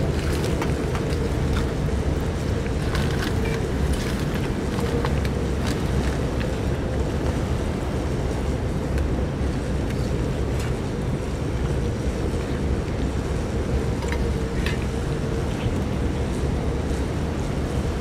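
Strong typhoon wind buffeting the microphone: a steady, loud low rumble, with a few faint clicks scattered through it.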